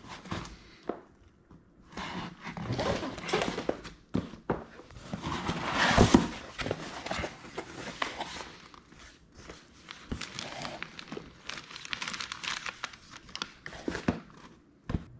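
Hands opening a taped cardboard box: cardboard tearing, scraping and rustling as the flaps are pulled open, then paper packing crinkling inside. A sharper knock comes about six seconds in.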